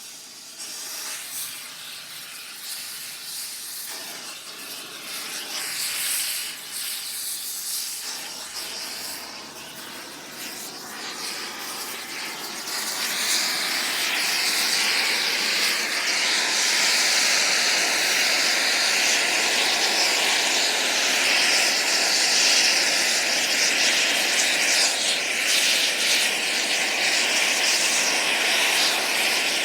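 Air torch on metal: a steady rushing hiss that grows louder about thirteen seconds in and holds, with a faint wavering tone running through it.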